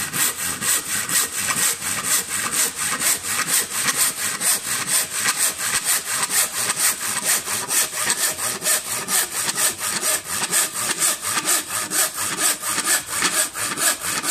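Hand saw cutting down through a wooden board in quick, short, even strokes, about four to five a second.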